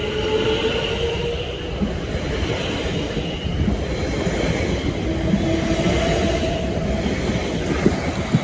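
Electric train running past, a steady rumble of wheels on rail with several high whining tones over it that change pitch through the passage.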